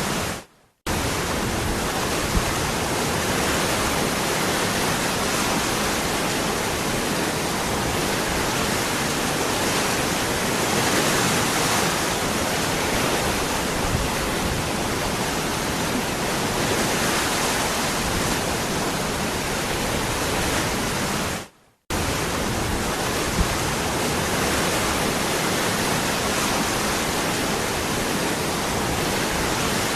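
Waterfall rushing, a steady dense roar of falling water. The sound fades out briefly about half a second in and again about 22 seconds in, each time returning abruptly, as at a join between looped recordings.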